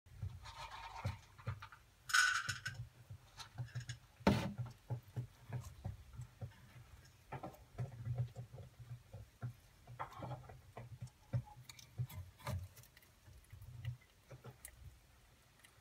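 A tenrec eating worms from a bowl: a run of small, quick chewing and crunching clicks, irregular throughout, with a louder knock about four seconds in.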